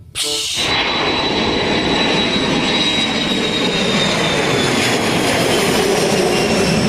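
Boeing 737 airliner's turbofan engines passing overhead in a climb: a steady rush of jet noise with a high whine that slowly falls in pitch.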